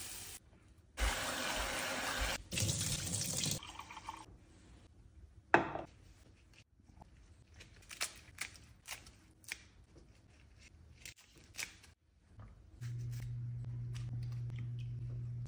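Water pouring into a stainless-steel pot of lentils for a few seconds, then a sharp knock. After that comes a run of light snipping clicks as leaves are cut into the pot with scissors. A steady low hum starts about three seconds before the end.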